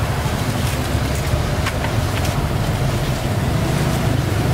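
Steady low rumble of street traffic with wind buffeting the microphone, and a few faint clicks.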